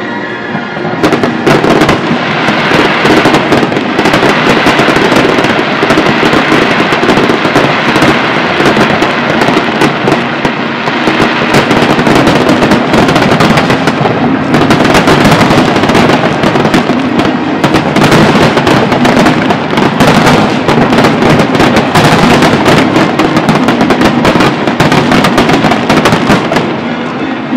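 Large aerial fireworks display: many shells bursting in quick succession, a dense, continuous crackle of bangs that swells about a second in and eases off near the end.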